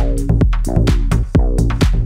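Music with a steady drum beat, about two beats a second, and sustained pitched chords.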